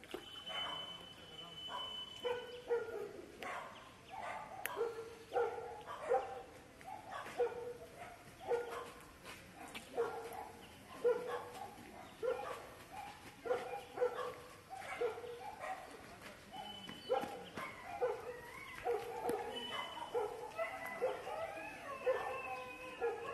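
An animal calling over and over, short pitched calls about one a second, with higher, gliding calls crowding in near the end.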